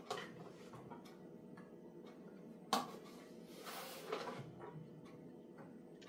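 Faint handling of a plastic camera bird feeder on a table: a single sharp plastic click about three seconds in, then light knocks and rustling as it is moved and set down.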